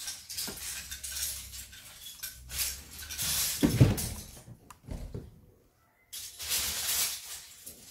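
Loose plastic LEGO bricks clattering and rattling as hands rummage through a pile of them, with a louder thump a little under four seconds in. The sound drops out completely for about half a second past the middle.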